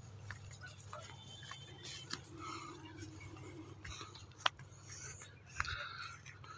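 Faint rustling of crop plants and footsteps of someone walking through a field, with a few sharp clicks, the loudest about four and a half seconds in.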